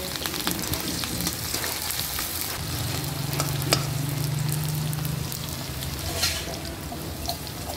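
Sliced onion and green chillies sizzling and frying in hot oil in an iron karahi, stirred with a metal slotted ladle that clicks and scrapes against the pan.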